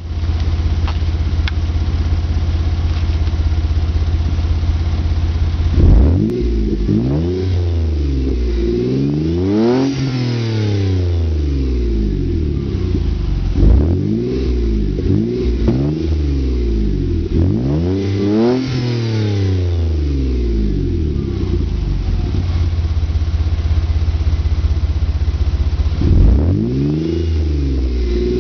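Mazda Millenia S's supercharged 2.3-litre Miller-cycle V6 heard at the tailpipes through a Remus aftermarket exhaust with the resonator deleted. It idles steadily at first, then is revved in a series of free-revs from about six seconds in, the pitch rising and falling back each time. It returns to idle for a while before one more rev near the end.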